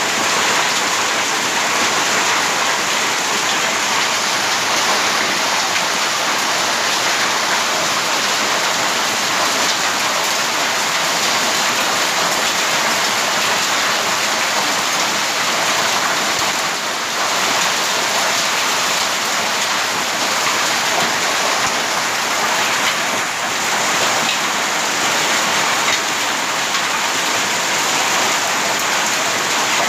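Heavy rain and hail pelting a paved street, a dense, steady hiss.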